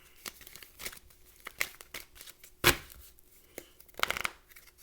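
Tarot cards being handled on a table: scattered light clicks and rustles of card stock, one sharp knock a little under three seconds in, and a short rustle around four seconds in.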